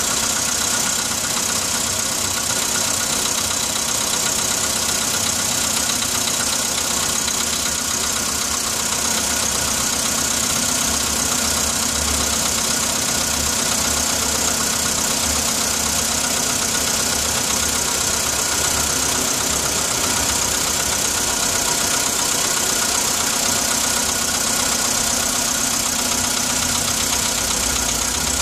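Car engine idling cold, with a steady knocking from the engine that appears when it is cold.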